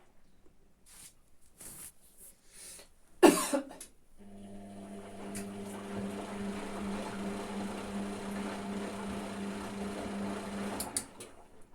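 Hotpoint washing machine during the rinse: one loud thump about three seconds in, then the drum motor starts and hums at a steady pitch for about seven seconds, stopping near the end with a few clicks.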